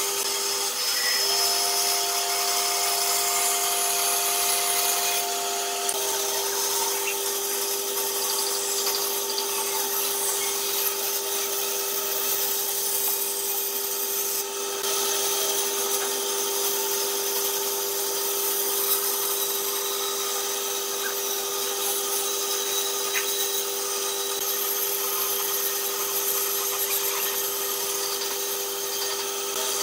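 Bandsaw running with a steady hum while its blade cuts curves in a pine board, the hiss of the cut carrying over the motor. An extra higher whine sounds for the first few seconds, then stops.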